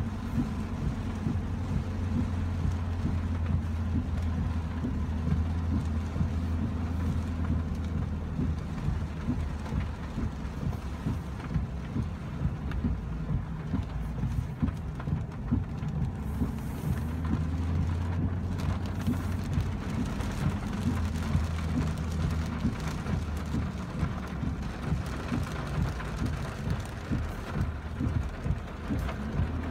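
Heavy rain pattering on a moving vehicle's roof and windows, heard from inside the cab, over the steady low drone of the vehicle driving on a wet road.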